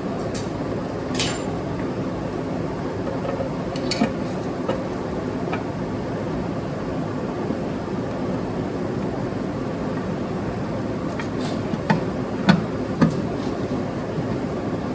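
Scattered light clicks and knocks, with a few sharper ones close together near the end, over a steady background hiss: an extended oil pan being handled and fitted onto the motorcycle engine's case.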